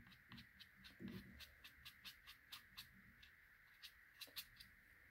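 Faint, quick scratching of a watercolour brush rubbed sideways on almost dry watercolour paper, about three or four strokes a second: the side of the bristles scrubbing in fur texture.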